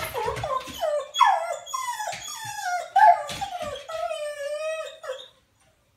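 Dog whining in a run of short, high cries that each fall in pitch, then one longer whine that stops about five seconds in.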